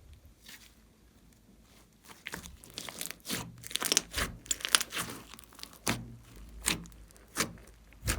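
Glossy slime being squeezed and stretched by hand, giving irregular sticky pops and crackles that start about two seconds in.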